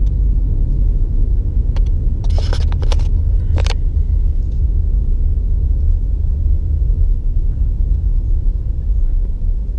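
Steady low road and engine rumble of a car being driven, heard inside the cabin, with a few brief clicks about two to four seconds in.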